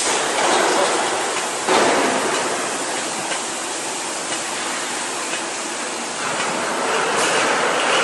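CNC cylindrical grinder at work: a steady rushing hiss that swells about two seconds in and again near the end.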